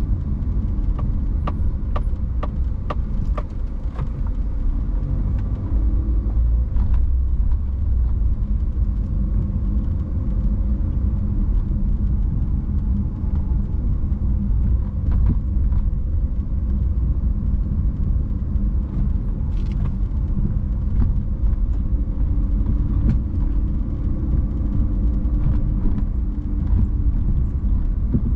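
Car driving: steady low rumble of road and engine noise, with a quick run of evenly spaced ticks in the first few seconds.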